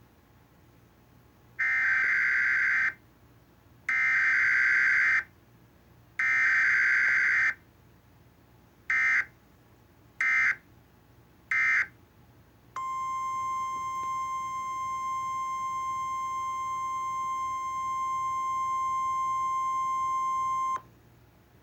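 Mock Emergency Alert System test tones. First come three long bursts of screeching digital header data, each about a second long, then three short bursts. Then a steady single-pitch attention signal holds for about eight seconds and cuts off sharply.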